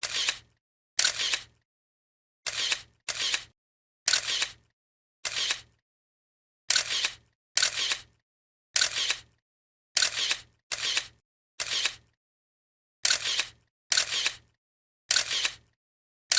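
Photo camera shutter clicking, about fifteen separate shots at uneven intervals, some in quick pairs.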